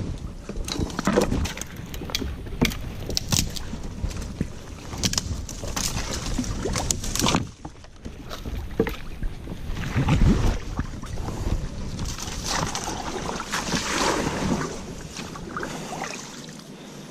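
A canoe being paddled on a small river: irregular splashes and knocks of the paddle against the water and hull, with a louder cluster of knocks about two-thirds of the way through.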